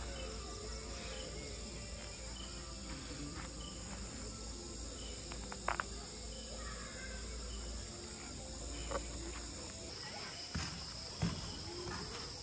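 Steady chorus of insects such as crickets or cicadas, with a few sharp clicks or knocks about six seconds in and more near the end.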